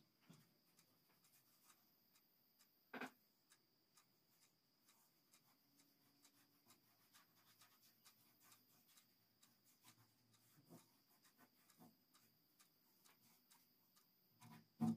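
Near silence with faint scratchy rubbing of a paintbrush applying paint to a car body, and soft scattered ticks. A short knock comes about three seconds in, and a louder thump comes right at the end.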